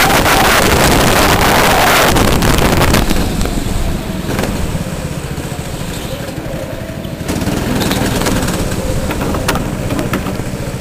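Go-kart engines running. The first three seconds or so are louder and noisier, then it settles to a quieter, steady engine note.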